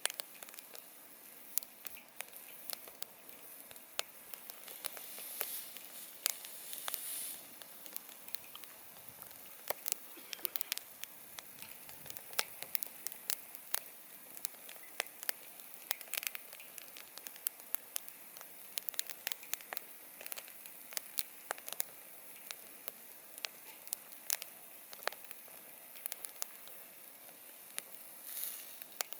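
Wood campfire crackling: many sharp, irregular pops and snaps over a steady low hiss, with a couple of brief hissing swells.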